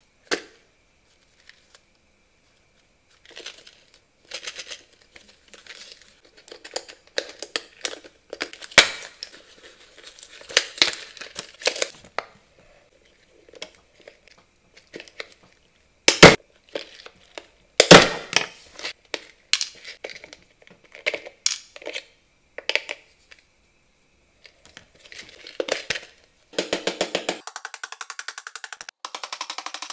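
Plastic and paper toy packaging crinkling and rustling in gloved hands, with scissors snipping and a few sharp plastic snaps, the loudest about halfway through. Near the end comes a fast, even rattling patter.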